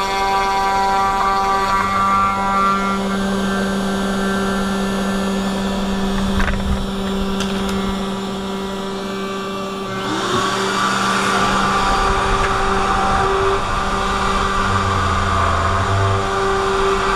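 A 500 W spindle on a 3018 desktop CNC router whining at a steady pitch while its cutter mills a slot in wood. About ten seconds in, a louder rushing noise joins it.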